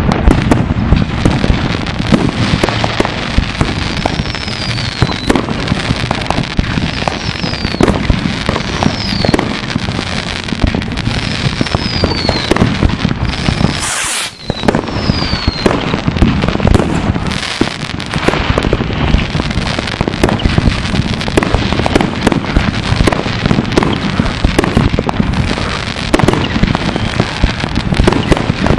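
Many fireworks going off at once: a continuous barrage of bangs and crackles, with several short falling whistles in the first half and a brief dip in loudness about halfway through.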